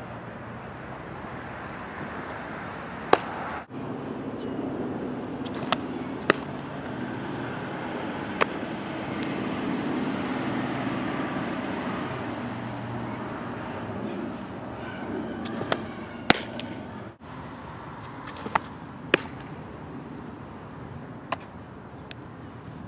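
Softball pitches smacking into a catcher's mitt: about nine sharp pops spread through, some in pairs half a second apart, over steady outdoor background noise.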